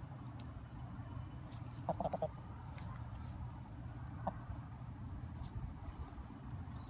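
Buckeye hens clucking: a quick run of about four clucks about two seconds in, then a single cluck a couple of seconds later, over a low steady rumble.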